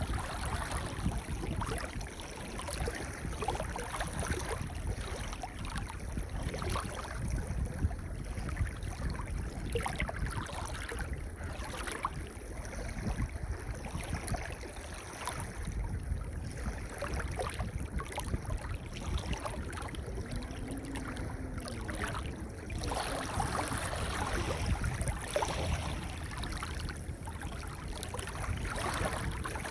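Waves washing in and out on a pebble beach: a continuous wash, with a stronger surge about two-thirds of the way through and another near the end.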